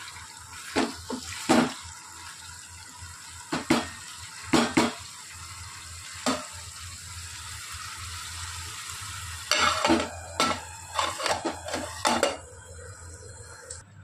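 A metal spoon stirring and scraping through ivy gourd curry in a metal frying pan, knocking against the pan. The knocks are scattered at first, then come in a quick run about two-thirds of the way in, over a steady hiss from the pan that stops just before the end.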